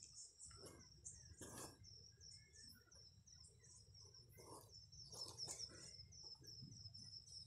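Faint, rapid high-pitched chirping of night creatures, several chirps a second, over a low rumble, with a few soft rustles.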